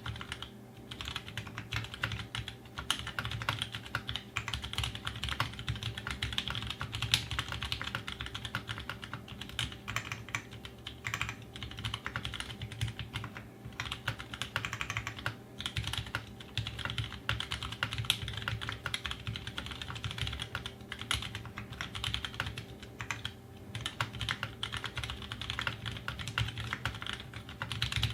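Fast continuous typing on a custom 60% mechanical keyboard: Aquaria case with an aluminium plate and Zeal60 PCB, Halo Ergo tactile switches (Halo housings, Cherry MX Clear stems, 62 g springs) and GMK Laser keycaps. The keystrokes come as a dense, rapid clatter with a few short pauses.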